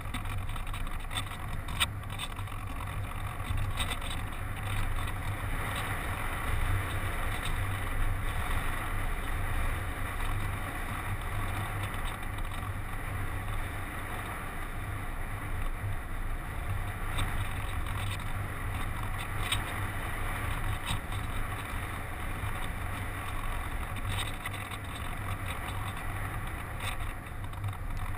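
Steady rush of airflow and airframe vibration from a ParkZone Radian RC glider in flight, with a constant low hum and a few brief clicks.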